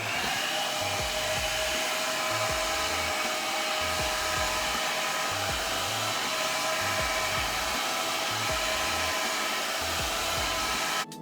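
Irresistible Me Black Diamond blow dryer running: a steady rush of air with a whine on top, switched on right at the start and cut off just before the end.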